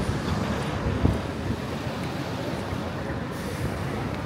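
City street traffic at a busy intersection: cars and a bus running close by as a steady low rumble, with a soft knock about a second in.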